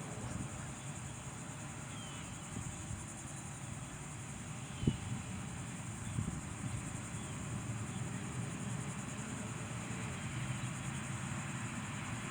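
Quiet outdoor ambience of insects chirring steadily at a high pitch, with a single brief thump about five seconds in.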